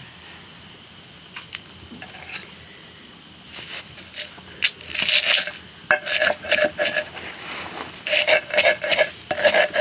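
Metal utensils scraping and clinking against a metal pot, the pot ringing with each stroke. A few light clicks at first, then quick repeated scrapes from about halfway in, coming faster near the end.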